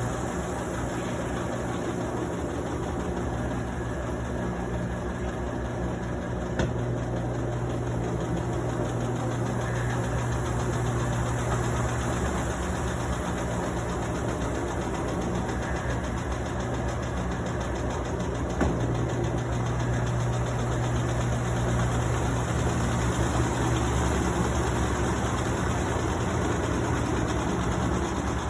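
Consul Facilite 11 kg washing machine running with a steady motor and drum hum, fitted with a newly replaced bearing. Two brief clicks break the hum, and it grows slightly louder in the second half.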